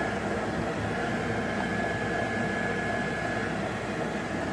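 Tefal air fryer running: a steady fan whir with a thin, high, constant whine over it.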